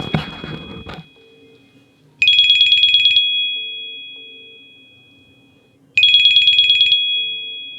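Apple Watch Series 9 playing its default incoming-call ringtone, which cannot be changed: twice, a rapid high two-tone trill lasting about a second rings out and then fades slowly, with a low buzz under each trill. The tail of an earlier ring dies away about a second in.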